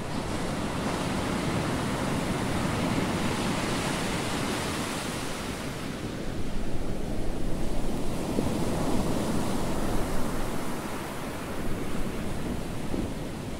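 Rushing ocean waves and wind, a steady wash that swells louder about six seconds in and eases again near the end.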